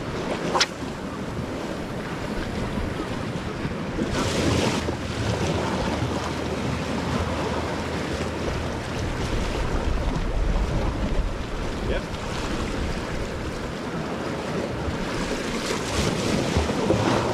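Sea surf washing against a rocky shore, with wind buffeting the microphone, gusting louder about four seconds in and again near the end.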